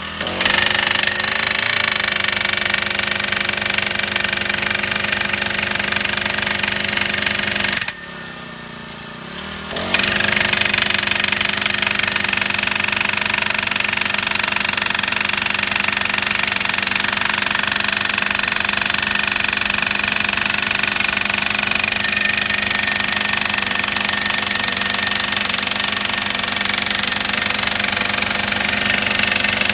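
Rhino gas-powered post driver hammering a chain-link fence post into the ground: a fast, steady pounding over its small engine. About eight seconds in, the hammering stops for about two seconds, then resumes and runs on.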